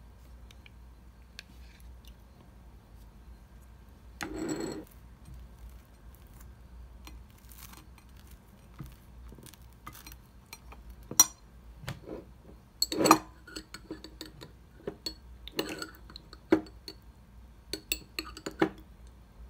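Dishes and cutlery knocking and clinking in a kitchen: a short noisy sound about four seconds in, then a run of sharp clinks in the second half.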